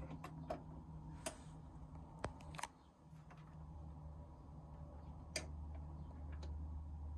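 Technics SL-D5 direct-drive automatic turntable's auto-return mechanism working after stop: a series of faint clicks and knocks as the tonearm lifts and swings back to its rest. A low steady hum comes up about three and a half seconds in.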